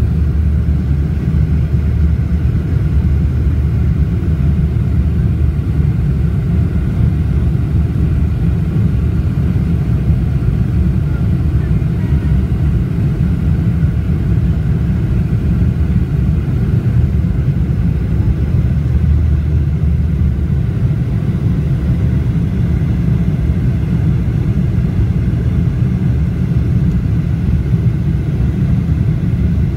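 Steady low rumble of a Boeing 747-400's four turbofan engines and the rushing air, heard inside the passenger cabin during the climb after take-off.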